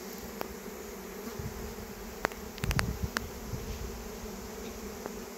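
Steady, dense buzzing of a honeybee swarm in flight, tens of thousands of bees swirling close around the microphone after leaving their cluster. A few sharp clicks break through, most of them between about two and three seconds in, one with a short low thump.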